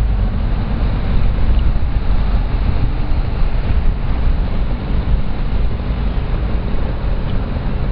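FG radio-controlled monster truck driving, its motor running steadily, under a heavy low rumble of wind buffeting the microphone.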